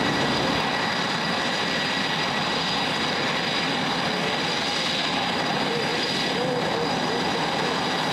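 Boeing F/A-18 Super Hornet's twin jet engines running steadily on the ground: a continuous rush with a high, steady whine over it.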